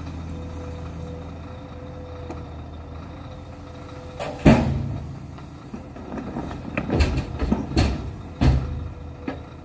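Excavator bucket dumping earth and rocks into a SHACMAN tipper truck's steel body: heavy thuds and clatter about four and a half seconds in, then several more from about seven to eight and a half seconds. Underneath, the machines' engines run steadily.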